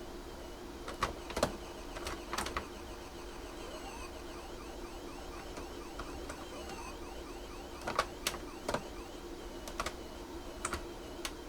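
Pac-Man game sounds from a Tandy Color Computer: a wavering, siren-like high tone runs throughout, with a run of quick sliding chirps about halfway through. Sharp clicks are scattered over it, a few near the start and a cluster from about eight seconds on.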